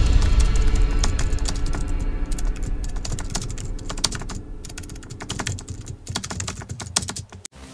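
Keyboard typing sound effect: a fast, irregular run of key clicks over the fading tail of a music sting, cutting off suddenly just before the end.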